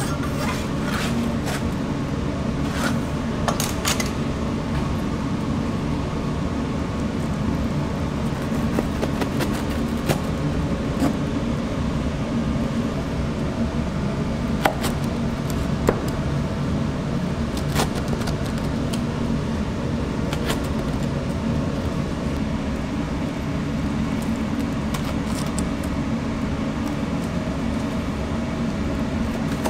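Steady low hum of kitchen machinery, with scattered sharp clicks and taps as a large knife cuts through a giant cheese pizza on a cutting board, most of them in the first few seconds.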